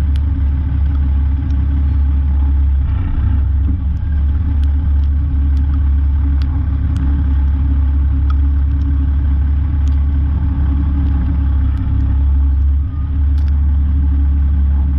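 Peterbilt semi truck's diesel engine running with a steady low drone, with faint scattered clicks over it.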